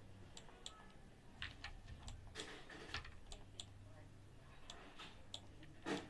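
Faint, irregular clicks of a computer mouse and keyboard, about a dozen scattered through, over a faint low steady hum.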